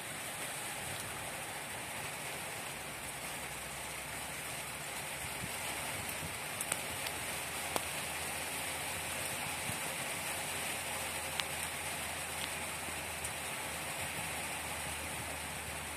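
Steady rain falling on a laid steel rebar mesh and wet ground, with a few sharp ticks standing out.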